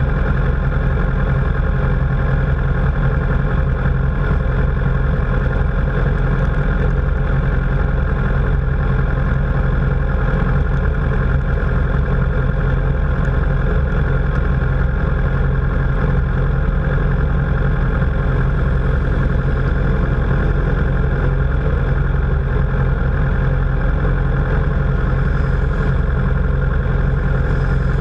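Motorcycle engines idling steadily while stopped, a low even running with no revving.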